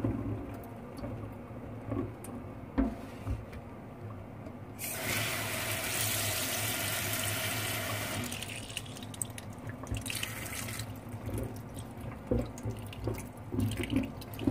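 Kitchen tap running into a plastic container of pork blood jelly cubes for about four seconds, starting about five seconds in, with a shorter burst of water near ten seconds, as the cubes are rinsed in fresh cold water. Light knocks and splashes of the container being handled over the sink drain come in between.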